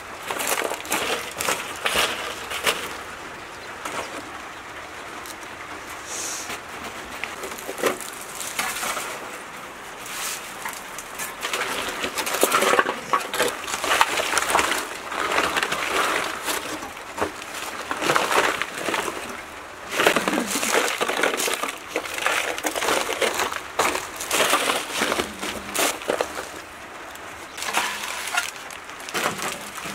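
Baked dry clay crust cracking and crumbling as it is broken off by hand, then crumpled aluminium foil crinkling as it is pulled away. Irregular crackling and rustling with short sharp clicks throughout.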